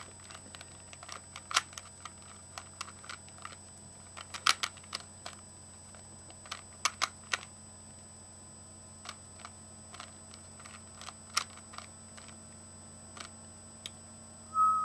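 Rubik's cube being turned fast during a solve: plastic layers clicking and clacking in irregular quick clusters with short pauses between. A cat meows briefly near the end.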